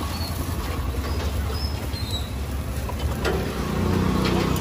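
Parathas cooking on a large flat iron griddle over a steady low rumble, with a couple of light knocks near the end as a steel press is pushed down onto a paratha.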